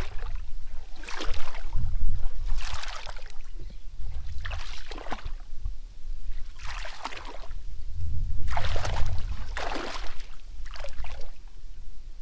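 Hands digging and scooping in wet mud and shallow water while hunting eels in their holes. Short splashes and squelches come about every one to two seconds over a low rumble.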